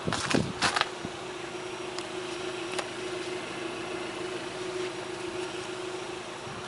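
A steady droning hum, with a few scuffing knocks in the first second.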